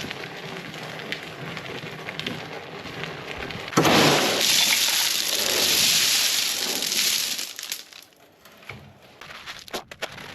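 Wheelbarrow load of gravel for a slab sub-base: a crunching, scraping noise, then about four seconds in a loud rushing rattle as the stones pour out of the tipped barrow for about three and a half seconds, dying away to a few scattered clicks.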